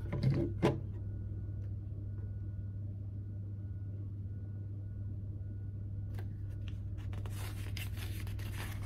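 Hands handling LEGO plastic pieces during a build: a few sharp clicks in the first second, then a dense run of rustling and clicking in the last three seconds. A steady low hum runs underneath.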